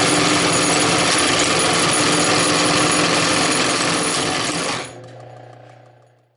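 Singer 71-34 buttonhole sewing machine running at speed, a dense rapid mechanical clatter. About five seconds in the clatter stops abruptly and a steady low hum remains, fading out.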